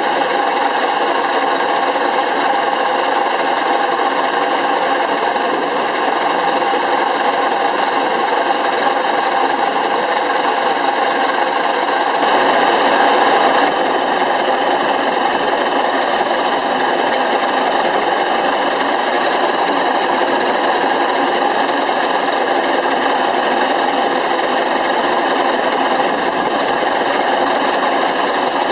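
Small steam engine of a Pence Bull Pup steam tractor, a steam shovel swing engine, running steadily with a fast, even mechanical clatter as it drives the machine's belt pulley. It grows briefly a little louder about halfway through.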